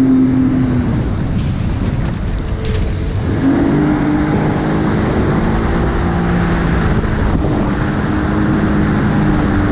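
Jet ski engine running on the water with wind and water rushing; its steady note drops away about a second in and returns about two and a half seconds later at a slightly higher pitch, then holds.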